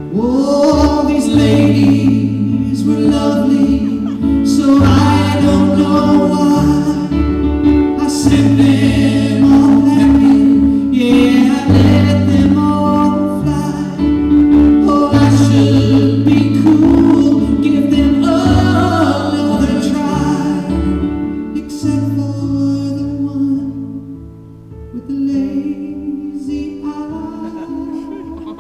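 Live song: a man singing into a microphone with held notes over instrumental accompaniment, with steady low notes underneath; it turns softer for the last few seconds.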